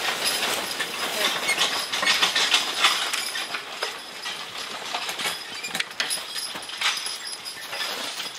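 A large log dragging behind a horse-drawn logging arch, its trailing end scraping and crackling over frozen dirt, leaves and snow with many small knocks. It grows quieter about halfway through as the log moves away.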